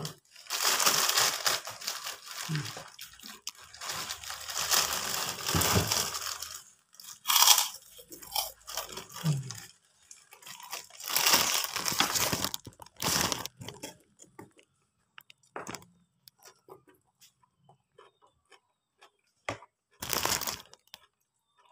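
Plastic bag of kerupuk crackers crinkling and rustling as it is opened and handled. After that come intermittent loud crunches as the crackers are broken and bitten. Near the end there are softer chewing clicks and one more crunch.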